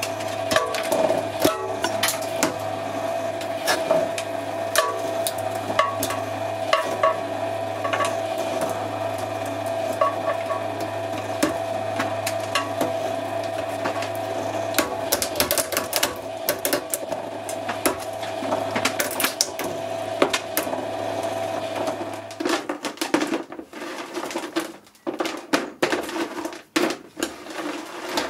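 Twin-shaft shredder running with a steady hum while its cutters crunch plastic toothbrushes, with many sharp cracks and snaps of breaking plastic. The motor stops about 22 seconds in, and irregular clatter and knocks of shredded plastic pieces follow.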